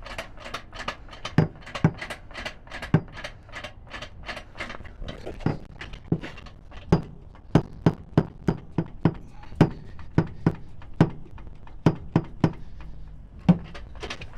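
Pittsburgh 2-ton aluminium floor jack being pumped by its handle to lift a cargo van. A run of quick metallic clicks gives way, about five seconds in, to a steady series of louder knocks about two a second.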